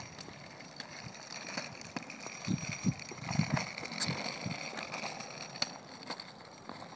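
Small plastic kick scooter rolling over a concrete driveway, its wheels rattling, with scattered clicks and knocks and a few dull thumps in the middle.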